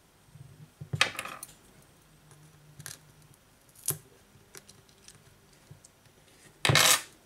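Small tool clicking and scraping against the Samsung Galaxy S8+ phone frame while the vibration motor is worked loose: a few sharp ticks, then a louder scrape lasting about a third of a second near the end.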